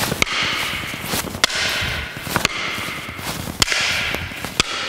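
Wooden hurleys clacking together five times, about once a second, as a block meets a swing from alternating sides, with shuffling steps on the hall floor in between.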